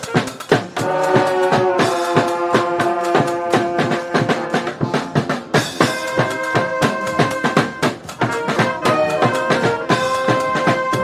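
Street brass band playing live: horns holding long chords that change every few seconds, over a busy drum beat.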